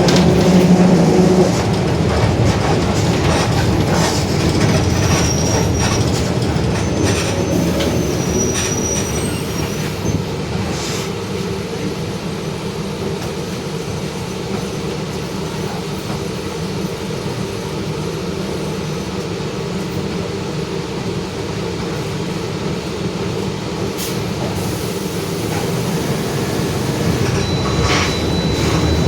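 Mercedes-Benz OF-1721 Bluetec 5 city bus under way: diesel engine and drivetrain running with a dense low rumble, and the differential growling. A pitched drone in the first second or so gives way to the rumble, which eases about midway and builds again near the end.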